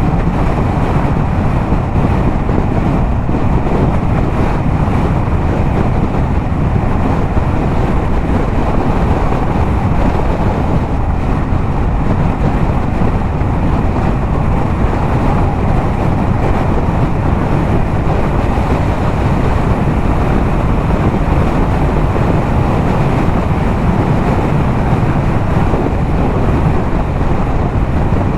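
Yamaha MT-07's 689 cc parallel-twin engine, fitted with a LeoVince exhaust, running steadily at highway cruising speed. Wind rushes over the microphone, mixed with the exhaust.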